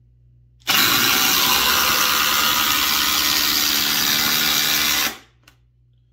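Two cordless impact drivers, a DeWalt DCF840 and a Milwaukee M18 Fuel Gen 3 (2853), hammering together as they drive long screws into stacked lumber. They start under a second in, run loud and steady for about four and a half seconds, and stop together, followed by a faint click.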